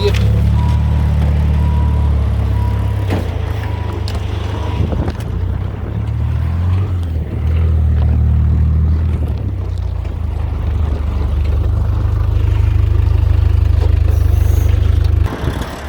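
Diesel truck engine running at idle: a loud, steady low rumble that swells and eases a little and cuts off abruptly near the end.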